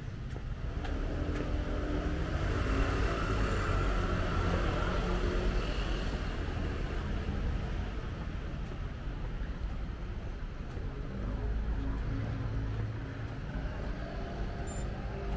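City street traffic: a motor vehicle passes close, its engine and tyre noise swelling about a second in and easing off after the middle, over a steady low rumble of traffic.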